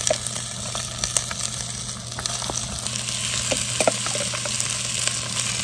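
Onions, garlic and cod pieces sizzling steadily in hot oil in a cast iron Dutch oven over a campfire, with scattered small clicks. The pot is running hot.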